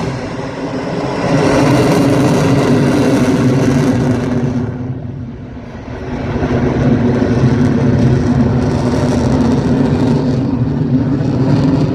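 Loud jet noise from an F-22 Raptor's two Pratt & Whitney F119 turbofan engines as it flies past. It eases off for about a second near the middle, then swells again.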